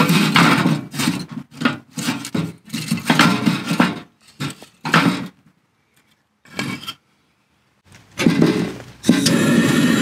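Split wooden kindling knocked and scraped into the firebox of a small metal wood stove, a string of short wooden clatters against the metal. About nine seconds in, a steady hiss starts: a gas torch burning to light the wood.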